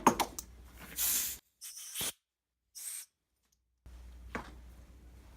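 Sharp clicks of parts and tools being handled. These are followed by three short hissing bursts, each cut off by dead silence, and one more faint click near the end.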